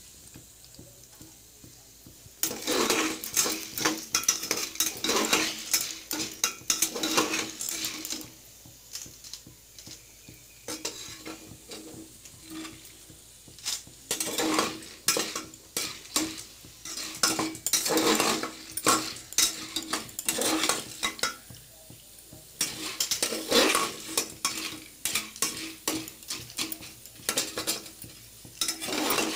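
Flat metal paddle stirring and scraping a pot full of chickpeas in a large aluminium pot: a quick rattle and scrape, stroke after stroke. It comes in three bouts with short pauses between, starting about two and a half seconds in.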